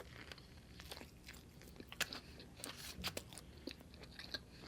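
A person eating close to the microphone: soft chewing broken by a scatter of sharp crunches and wet mouth clicks, several around the middle.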